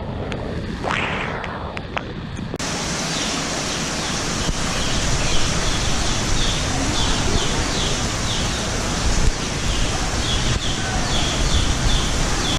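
Steady rushing storm noise that turns louder and fuller about two and a half seconds in, with short high chirps repeating through it.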